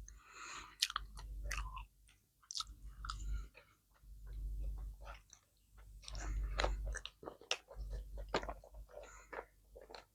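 Close-miked mukbang chewing and biting: wet mouth clicks and soft crunches in bouts of about a second, with short pauses between.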